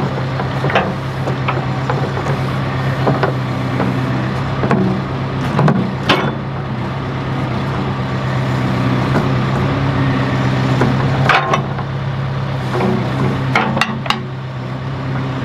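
A John Deere backhoe's engine running steadily under hydraulic load as the boom and bucket swing, with a handful of sharp metal clanks from the arm and bucket linkage.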